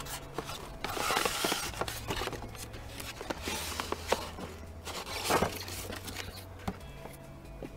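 Cardboard toy box being opened by hand and its polystyrene insert slid out: scraping and rustling of card in a few short bursts, with small knocks and clicks between.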